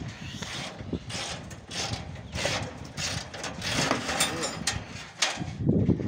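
Irregular metallic clicks and knocks of hand tools working bolts on a galvanized steel conveyor trough, with men's voices talking low.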